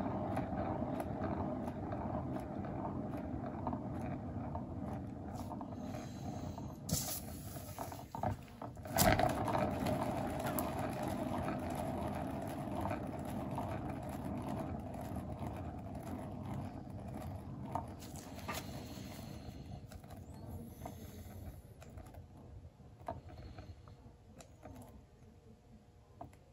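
Turntable spinning a round paint-pour board, its bearing giving a steady rolling rumble. A knock about nine seconds in, after which it runs louder again, then the rumble fades away as the spin slows to a stop.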